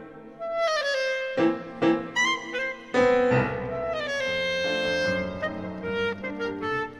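Clarinet playing a melody of short, separated notes, joined about three seconds in by a louder accompaniment with lower sustained notes.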